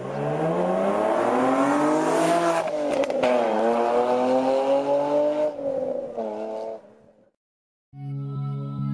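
Nissan 350Z's 3.5-litre V6 with a cat-back dual exhaust accelerating hard. The pitch climbs, drops back twice as it changes up through the gears, then fades out about seven seconds in. Music starts near the end.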